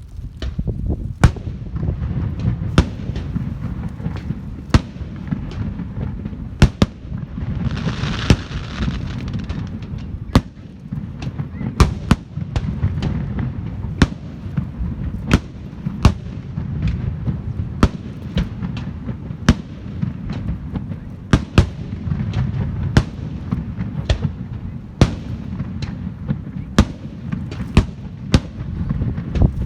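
Fireworks display going off: a long string of sharp bangs, irregular but roughly one every second, over a steady low rumble, with a brief crackling hiss about eight seconds in.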